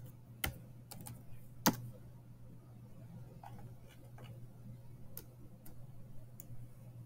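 Scattered sharp clicks of a computer mouse and keyboard as a dimension value is typed in and the view is zoomed, over a faint steady low hum.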